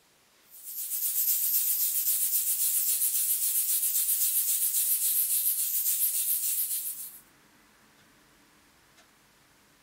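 Paint-loaded toothbrush scrubbed rapidly back and forth over a small wire-mesh screen to spatter acrylic paint onto a canvas: a scratchy bristle-on-mesh rubbing at about four strokes a second. It starts about half a second in and stops about seven seconds in.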